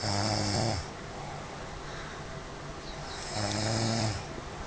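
A sleeping person snoring: two snores, each just under a second long and about three seconds apart, each a low buzz with a breathy hiss.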